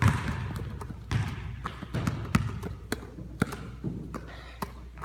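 Basketballs being handled in a leg-wrap drill: irregular slaps of hands on the balls, with occasional bounces on the floor, about two a second.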